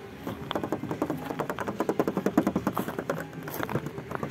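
Footsteps crunching on loose gravel, a quick run of short gritty crunches.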